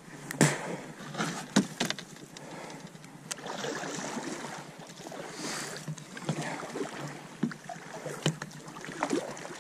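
Kayak being paddled: the paddle blades dip and splash in the water, with a few sharp knocks scattered through.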